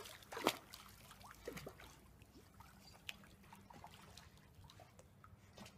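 Pool water splashing and lapping as a German shepherd puppy paddles, with a louder splash about half a second in, then fainter trickling.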